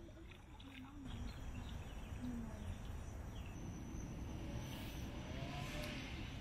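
Quiet outdoor river ambience heard from a kayak: a steady low rumble on the small camera's microphone, with faint wavering calls in the background.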